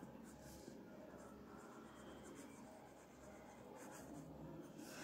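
Faint scratching of a pen writing on paper, in short irregular strokes.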